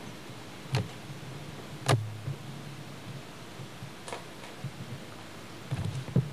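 A handful of sharp knocks at irregular intervals over a faint low hum, the loudest about two seconds in and a quick cluster near the end.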